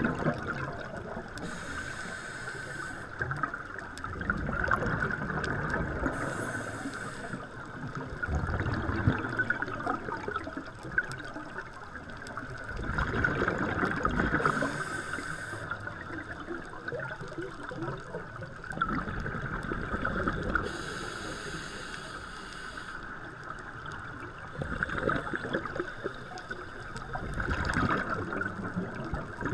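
Scuba diver breathing through a regulator underwater: a hiss on each inhale every six or seven seconds, each followed by a rumble of exhaled bubbles, over a steady high hum.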